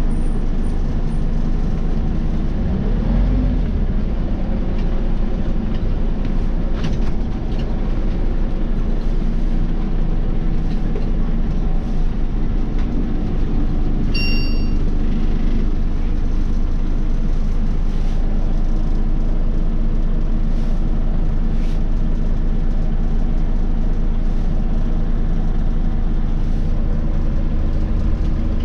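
Scania OmniCity city bus heard from the passenger cabin while driving: a steady low drone of engine and road noise, with a few light rattles and a short electronic beep about halfway through.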